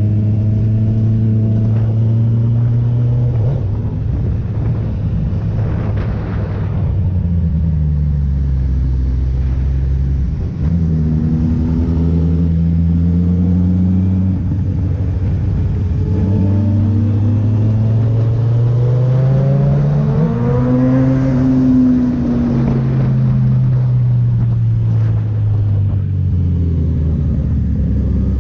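Kawasaki Z900 inline-four running through a Firetong aftermarket exhaust, its revs falling and picking up several times, climbing to a peak about three-quarters of the way through and then dropping away slowly.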